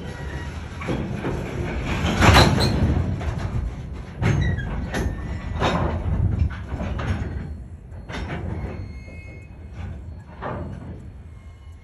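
Covered hopper car rolling slowly past, its wheels and trucks rumbling with heavy clunks and knocks every second or two, the loudest about two seconds in.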